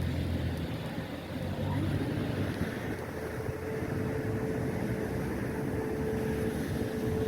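Porsche 991 Turbo's twin-turbo flat-six running at a steady idle through an Evox aftermarket exhaust, a low even rumble. A thin steady whine joins about three seconds in.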